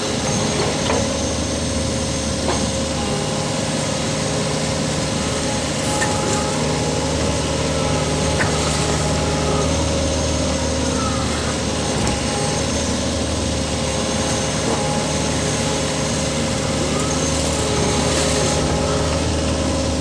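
Mini excavator's engine running steadily, with a few faint clicks.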